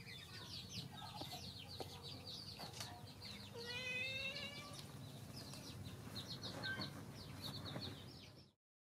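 Chickens: a continuous rapid run of high chick peeps, with one longer rising call about four seconds in. The sound cuts off abruptly near the end.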